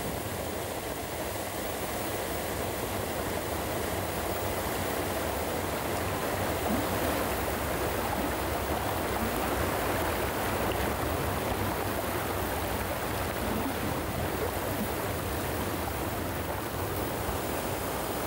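Muddy rainwater flood torrent rushing and tumbling down a rocky mountain gully between boulders: a steady, full rushing of water with no let-up.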